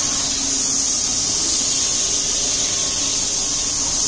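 Floor grinding-polishing machine running steadily, its pad working a wet floor.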